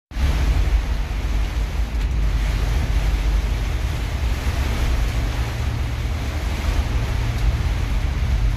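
Steady low rumble and rushing noise of a double-decker bus travelling on the road.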